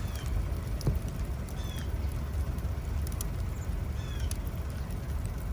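Sleet and ice pellets ticking down on surfaces over a steady low rumble, with three short high chirps.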